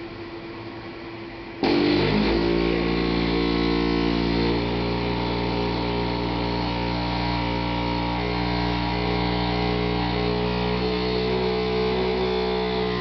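Toilet with a broken plastic fill valve: a hiss of water filling gives way suddenly, about a second and a half in, to a loud, steady, horrible droning buzz, like a jackhammer in the walls, as the faulty valve sets the pipes vibrating.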